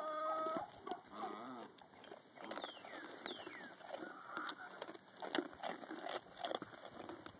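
A goat's bleat trailing off in the first half second, a short bent call about a second in, then irregular crunching and clicking of goats munching treats close to the microphone. Two high falling chirps come in about three seconds in.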